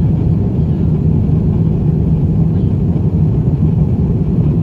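Steady low rumble of cabin noise inside an Airbus A350-900 airliner in flight: engine and airflow noise heard from a window seat.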